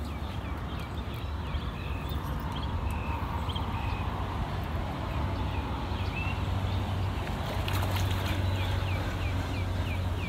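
Steady low motor hum that grows a little louder after the middle, with small birds chirping over it in many short, falling notes.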